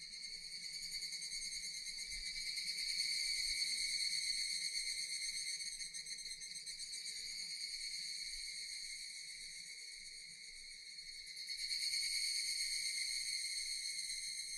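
Japanese cicadas buzzing in chorus: a steady, high, shrill drone that swells, sags about ten seconds in, then swells again.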